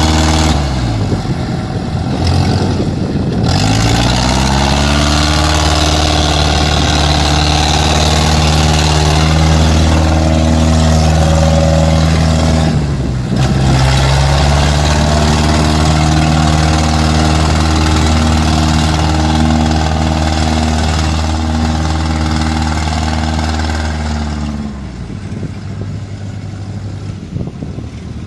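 Engine of a small tracked rice carrier, loaded with sacks, labouring through deep mud. Its revs sag and climb back in the first few seconds, dip again briefly about halfway, then drop sharply near the end and run on much quieter.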